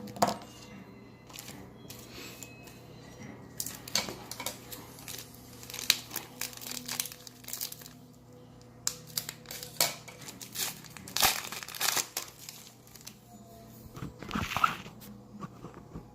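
Plastic trading-card pack wrappers crinkling and tearing as football card packs are handled and opened, in irregular bursts, the loudest about eleven and fourteen seconds in.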